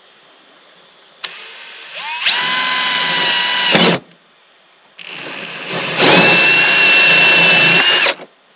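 Cordless drill with a 24 mm hole saw cutting a hole through a caravan's outer wall, in two runs of about three seconds with a short pause between. Each run starts softer, then the whine rises in pitch as the drill comes up to speed and holds steady until it stops suddenly.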